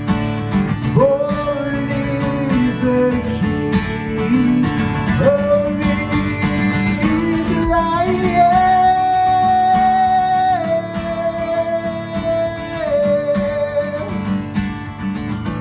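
Acoustic guitar accompanying a voice singing a slow worship song in long held notes.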